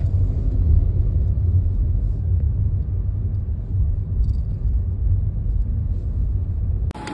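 Low, steady rumble of a moving car heard from inside the cabin, road and engine noise with little high-pitched sound; it cuts off abruptly near the end.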